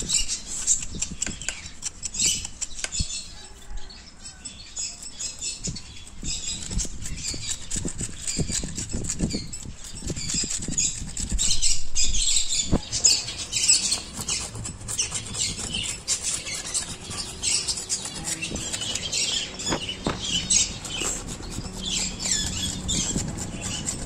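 Golok (machete) blade scraping the dry bark off a tree branch in quick, repeated strokes, smoothing the wood.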